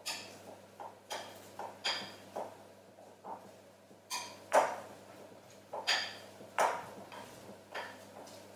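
A utensil clinking and knocking against a bowl while roughly mashing cooked butternut squash. The sharp clinks come irregularly, about once a second, each with a short ring.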